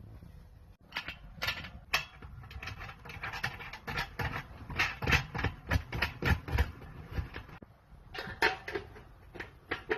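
Irregular clicks, knocks and rattles of metal raised garden bed panels and hardware being handled and fitted together during assembly, with a short lull about three-quarters through.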